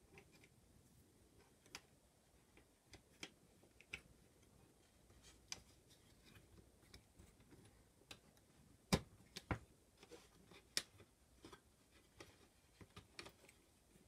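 Faint, scattered clicks and taps of a screwdriver and metal parts as screws are worked on a Roland QuickDisk drive's chassis, with two louder clicks close together about two-thirds of the way through.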